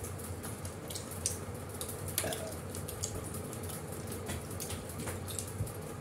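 Scattered small wet clicks and smacks of people chewing and eating with their fingers from paper plates, one a little louder about two seconds in, over a low steady hum.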